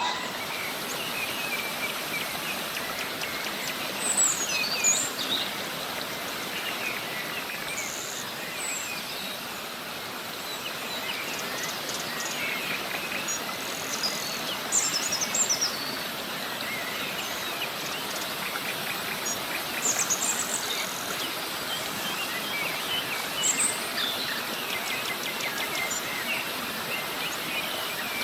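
River water rushing steadily over a small cascade, with birds chirping and calling over it in short, scattered bursts of song.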